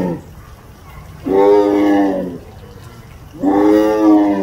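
Tiger roaring in a series of calls, each about a second long with a short pause between. The end of one call falls at the start, a full call comes about a second in, and another begins near the end.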